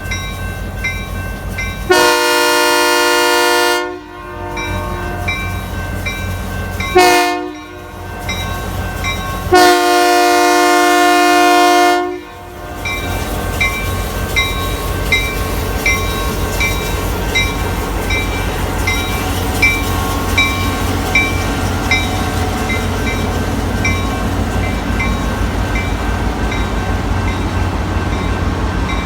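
EMD GP9 diesel locomotive sounding its air horn three times: a long blast, a short one, then another long one. The horn plays over the steady low rumble of the locomotive and train, with a faint high ding repeating about twice a second.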